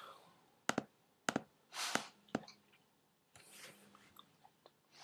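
A few faint computer-mouse clicks, scattered in the first half, with soft breaths close to the microphone.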